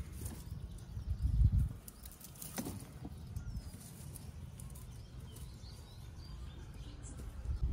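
Dry, withered tomato plants rustling as ripe tomatoes are picked by hand, with a brief crackle about two and a half seconds in, over a low rumble on the microphone that swells about a second and a half in. Faint bird chirps in the background.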